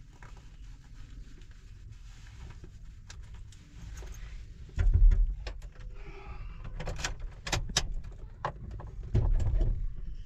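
A door being handled: a run of clicks and knocks, with a heavy thud about five seconds in and another near the end, over a low rumble.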